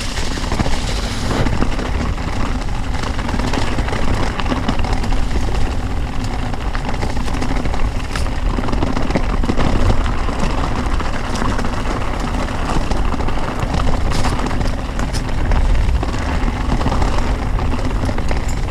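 Wind buffeting a bike-mounted camera's microphone over the rumble and rattle of a mountain bike riding fast over a rough off-road trail, with scattered sharp clicks and knocks from the bike.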